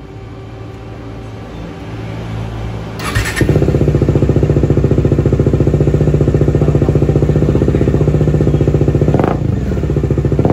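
Bajaj Dominar 400's single-cylinder engine running for a sound check through a slip-on muffler held by hand against the exhaust outlet. It idles for about three seconds, is blipped up to a steady, louder, fast-pulsing higher speed for about six seconds, and drops back near the end.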